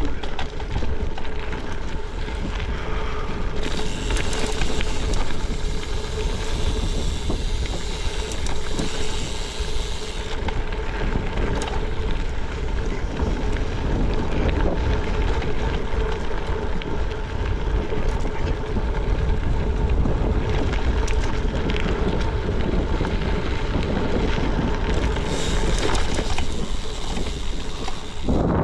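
Gravel bike rolling over a loose dirt-and-gravel fire road: a steady tyre rumble with the bike rattling and wind buffeting the microphone. A brighter hiss joins twice, for several seconds starting about three and a half seconds in, and again near the end.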